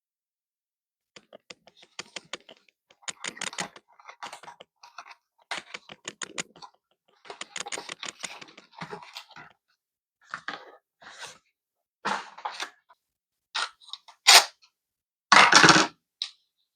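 Hands working with PC hardware: irregular clusters of small clicks, taps and scrapes, with a louder rustling burst near the end.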